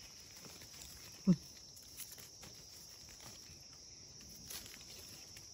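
Insects chirring steadily in forest undergrowth, with faint rustles and ticks as mushrooms and leaf litter are handled. A person gives one short, falling grunt about a second in.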